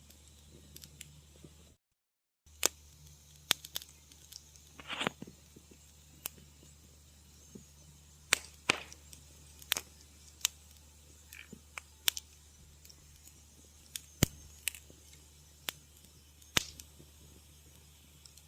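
Wood fire crackling in a fireplace: sharp irregular pops and snaps, a dozen or so, with one longer hissing pop about five seconds in, over a faint steady low background. The sound cuts out completely for about half a second near the start.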